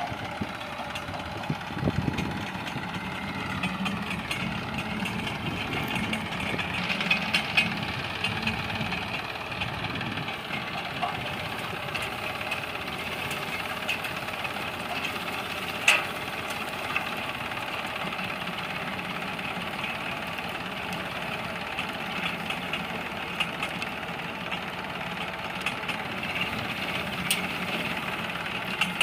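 Massey Ferguson tractor's diesel engine running steadily under load while it drags a home-made manure-spreading implement through dry soil, with scattered knocks, the sharpest about halfway through.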